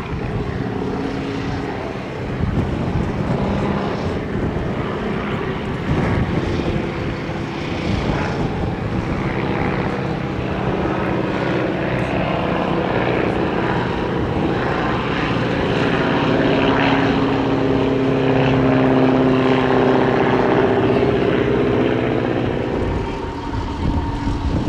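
Propeller aircraft engine running steadily, a continuous droning hum that grows louder past the middle and eases off slightly near the end.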